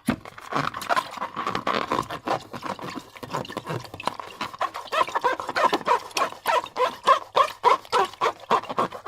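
Sticky slime being worked by hand, with rapid, irregular wet squelches, clicks and small squeaks, several a second.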